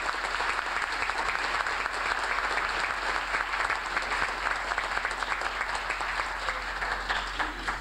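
Audience applauding, a steady round of many hands clapping that thins out near the end.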